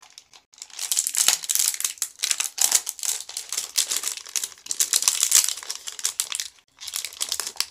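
Small plastic slime packet crinkling and crackling close up as it is handled and torn open, in several bursts with short pauses.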